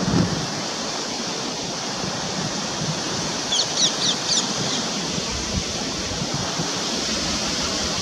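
Steady rushing wind blowing across the microphone. About halfway through, a bird gives a quick run of high chirps.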